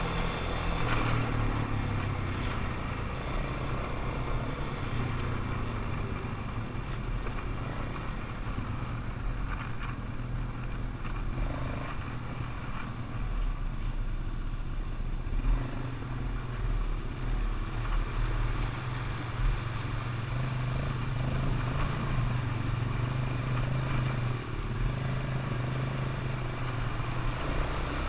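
ATV engine running steadily while riding, with a few brief knocks over the ride.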